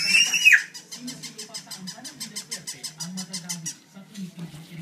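Battery-powered walking toy puppy running, its mechanism clicking rapidly at about six clicks a second over a low hum, the clicking stopping shortly before the end. A short, high-pitched falling squeal comes right at the start.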